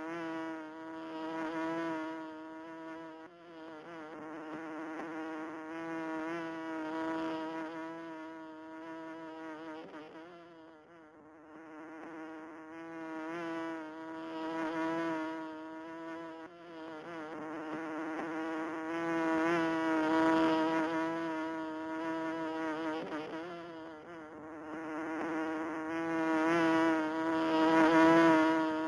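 Bee buzzing in flight: a steady, even-pitched hum that swells and fades over and over as it comes near and moves away, loudest near the end.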